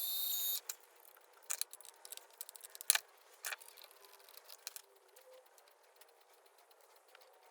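Micro metal lathe's small motor running with a steady high whine, switched off about half a second in. Then scattered light clicks and taps of handling, as the drill bit is swapped for a larger size.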